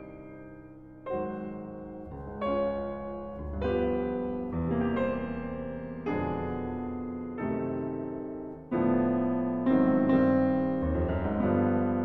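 Slow piano music: chords struck about once a second, each ringing on and fading before the next.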